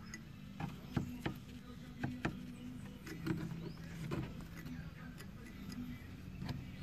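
Scattered light clicks and taps from hands working with small tools and parts, over a low steady hum.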